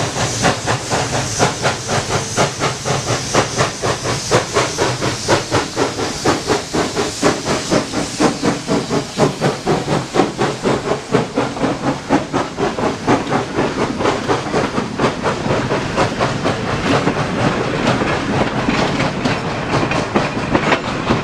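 Pennsylvania Railroad 0-6-0 steam locomotive 643 working hard as it pulls its train past, its exhaust chuffing in a quick, even beat over a steady hiss of steam. In the later seconds the beat grows softer as the coaches and caboose roll by.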